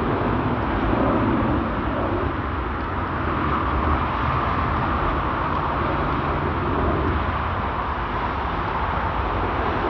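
Jet airliner departing at takeoff thrust: a loud, steady rush and rumble of engine noise, a little brighter in the middle.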